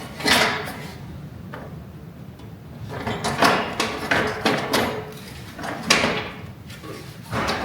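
A run of separate clunks and scrapes as objects are handled and set into a tractor-mounted toolbox and gas/oil carrier during test fitting.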